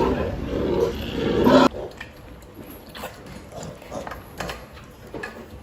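Pigs squealing and grunting loudly, cut off suddenly a little under two seconds in; then a quieter stretch with faint knocks and soft grunts.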